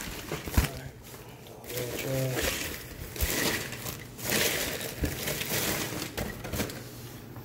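Paper and plastic mailing envelopes rustling and crinkling in irregular bursts as hands dig through a shipping box, with a brief mumbled voice about two seconds in.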